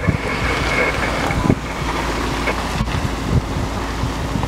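Strong gusty wind rushing and buffeting the microphone, a steady rumbling roar with a few small knocks.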